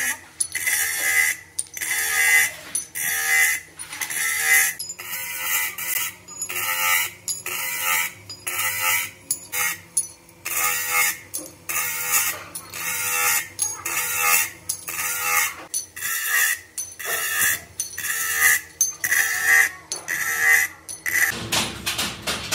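Cast metal brake shoes pressed again and again against a spinning polishing wheel driven by an electric motor: a harsh scraping burst with each pass, about one and a half a second, over the motor's steady hum. The shoes are being cleaned and finished.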